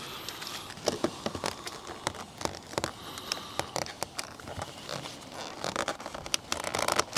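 Irregular light clicks, taps and rustling as plastic interior trim parts are handled and fitted.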